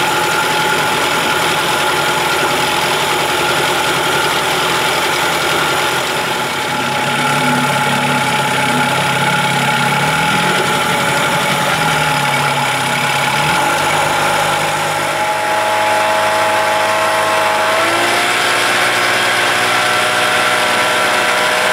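1975 Evinrude 40 hp two-stroke outboard running steadily at low throttle, back in service with one spark plug threaded into a thread-repair insert. Near the end its pitch steps up as it is throttled up and the boat gets under way.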